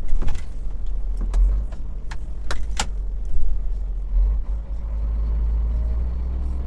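Steady low drone of a loaded truck running at highway speed, heard inside the cab, with a handful of sharp clicks or rattles in the first three seconds.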